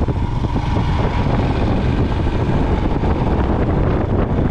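Royal Enfield Himalayan's single-cylinder engine running steadily under way, mixed with wind rumble on the microphone.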